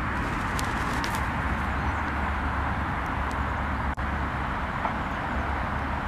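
Steady outdoor background noise: a low rumble with an even hiss over it, broken by a brief dropout about four seconds in.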